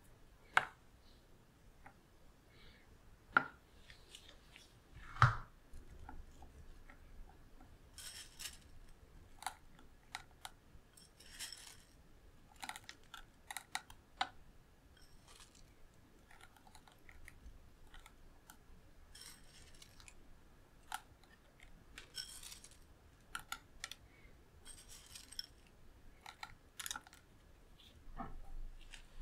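Toppings being put onto soft chocolate in a stainless-steel ring mould by hand. Three sharp clicks come in the first few seconds, the loudest a little after five seconds. Then chopped nuts are sprinkled from the fingers in short, irregular rustling patters.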